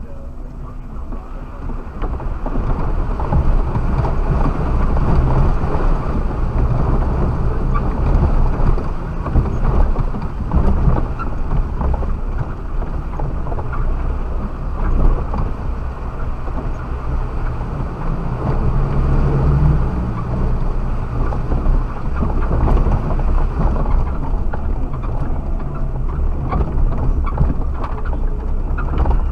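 Suzuki Jimny driving off-road over rough quarry ground, heard from the dashcam inside the cabin. A steady engine and drivetrain drone runs under constant knocks and rattles from the bumpy track, growing louder about two seconds in.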